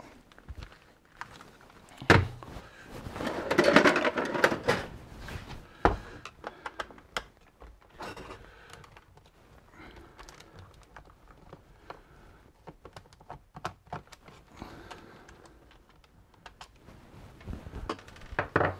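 Handling noise from a Dyson cordless stick vacuum as its battery pack is unscrewed and pulled off: scattered plastic clicks and knocks, a louder knock about two seconds in, a busier rattling stretch around four seconds in, and many small clicks later.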